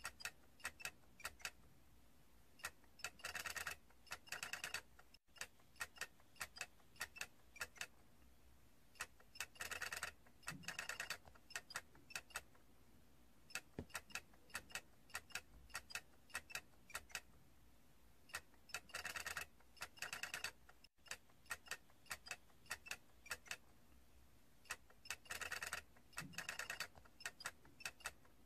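A toy giving irregular sharp clicks and ticks. Four times, a dense run of rapid clicking lasts about a second, and the sequence seems to repeat about every 16 seconds.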